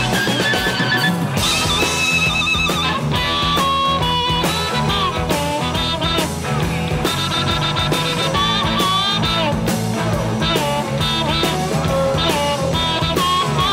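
A blues band playing live: an amplified harmonica, cupped against a microphone, plays a bending, wailing solo over electric bass, guitar and drums.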